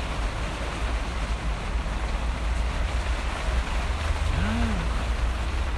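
Steady heavy rain with a deep rumble, picked up by a phone's microphone. About four and a half seconds in, a short hum rises and falls in pitch.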